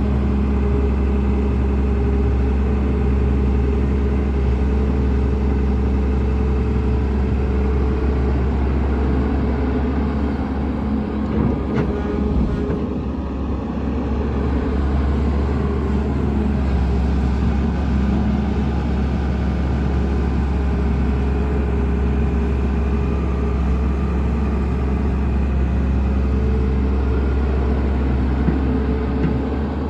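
Heavy diesel engine of earthmoving equipment running steadily under working load, with a brief knock about twelve seconds in.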